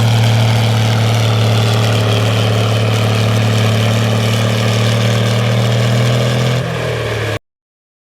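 Farm tractor engine running loudly at a steady speed under a pulling load. The level drops slightly about six and a half seconds in, then the sound cuts off abruptly.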